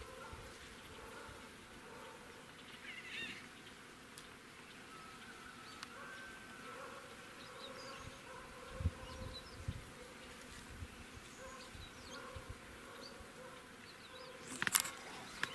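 A flying insect buzzing faintly and steadily, with a couple of soft thumps about nine seconds in and a sharp click near the end.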